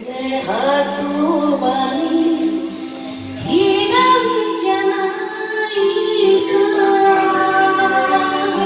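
A woman singing a Japanese popular ballad through a handheld microphone over a karaoke backing track, with long held notes.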